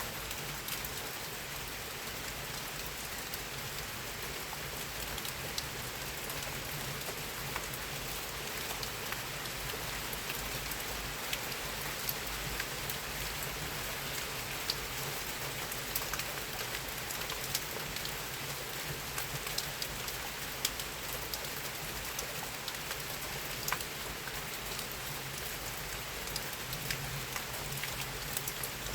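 Steady rain falling: an even hiss with scattered sharp ticks of single drops striking a surface.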